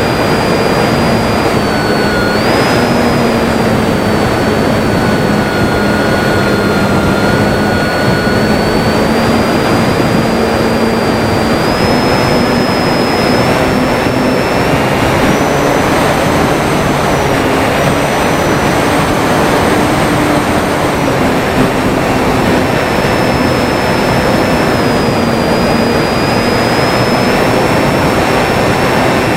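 Durafly Tundra RC plane's electric motor and propeller running steadily, a thin whine that drifts slowly up and down in pitch, over a loud, constant rush of wind noise.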